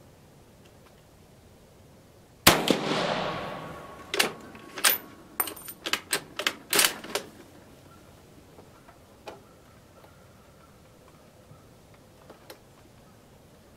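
A single shot from a 6.5mm Carcano M38 short rifle firing a cast-bullet load, the report trailing off over about a second and a half. Then the bolt is worked in a quick string of sharp metallic clicks, ejecting the case and chambering the next round, with a few faint clicks afterwards.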